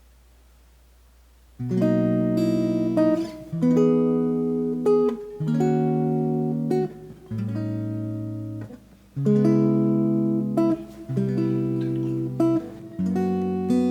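Background music: plucked acoustic guitar chords, changing every second or two. It comes in about a second and a half in, after a near-quiet moment.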